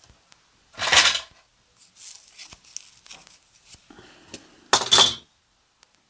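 Craft supplies being handled on a wooden worktable as a flat paintbrush is picked up: a short clatter about a second in, small clicks and rustles, then a louder clatter with a brief clink near the end.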